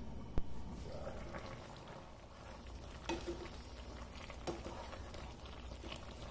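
Chicken and chana dal simmering in a steel pot, bubbling softly, as a wooden spoon stirs through the thick mixture and knocks against the pot a couple of times.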